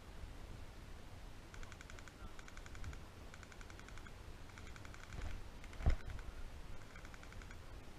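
Distant airsoft electric guns firing full-auto, five short bursts of rapid clicking ticks, with a single dull thump close by about six seconds in.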